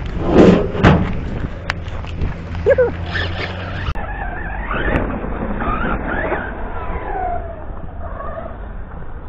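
Radio-controlled monster truck driving over a skate ramp and onto gravel: a couple of hard knocks in the first second, then its motor whine repeatedly rising and falling with the throttle over a steady rattle of the chassis and tyres.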